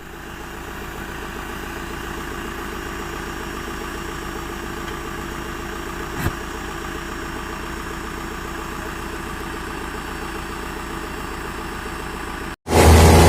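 Diesel engine of a JCB 3CX backhoe loader running steadily at idle, with a single short knock about six seconds in. Near the end the sound cuts out briefly and returns much louder.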